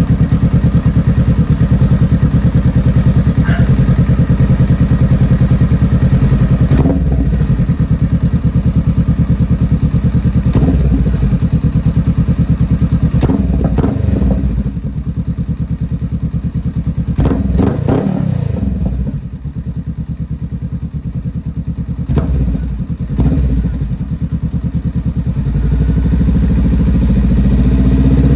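Honda Rebel 500's 471 cc parallel-twin running through an aftermarket Diablo Dark Thunder exhaust. It idles loudly with a fast, even exhaust pulse and is blipped several times, each blip rising and falling quickly. It settles quieter past the middle, then builds again near the end.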